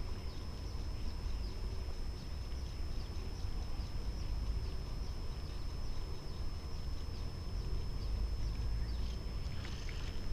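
Wind rumbling on an action camera's microphone, with a steady high-pitched whine and scattered faint ticks. Near the end comes a brief rustle of handling as the spinning reel is picked up.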